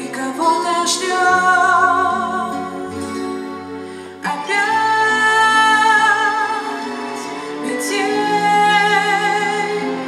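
A woman singing into a handheld microphone over backing music, holding long notes with vibrato in phrase after phrase; a new phrase comes in sharply about four seconds in.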